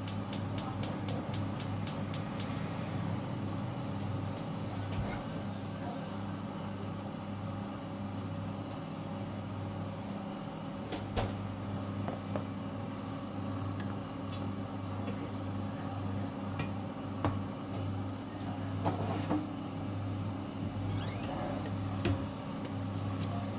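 A steady low mechanical hum from the kitchen, with a quick run of regular sharp clicks, about three a second, in the first two and a half seconds and a few scattered clicks later.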